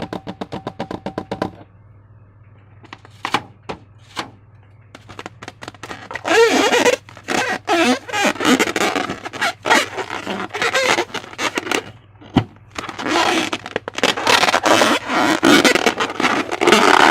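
Slime being squished and worked by hand: irregular wet crackling and squelching, dense from about six seconds in, after a quick run of clicks at the start.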